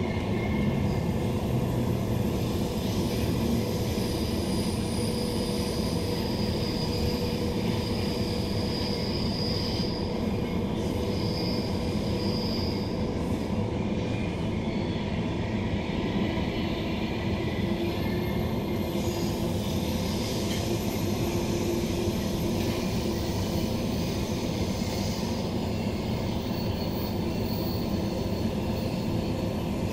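Steady running noise inside a Queensland Rail New Generation Rollingstock electric multiple unit at speed: wheels rumbling on the rails under the car. About a third of the way through there is a brief, thin, high-pitched wheel squeal.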